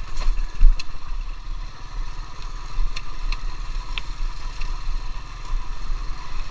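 Small motor scooter's engine running at low speed over a bumpy dirt track, with rattles and knocks from the rough ground. A loud thump comes less than a second in.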